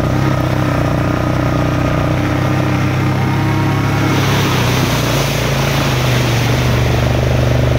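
Suzuki Ozark ATV's single-cylinder engine running at a steady pace on a dirt trail. About four seconds in, a hiss of splashing water joins it as the ATV drives into a mud puddle.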